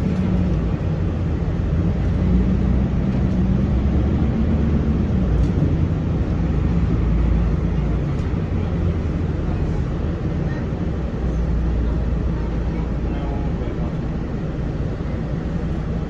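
Cabin noise aboard a Mercedes-Benz OC500LE bus under way: the engine and drivetrain run with a steady low rumble. A tone in the hum climbs slightly and then drops away about five seconds in.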